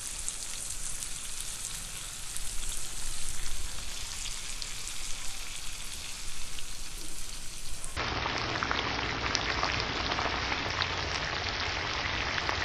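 Fish, tomatoes, onions and green chillies sizzling in oil on a flat iron tawa griddle: a steady crackling hiss with fine pops. About eight seconds in, the sizzle becomes suddenly louder.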